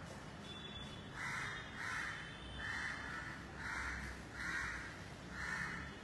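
A crow cawing repeatedly: six harsh caws about a second apart.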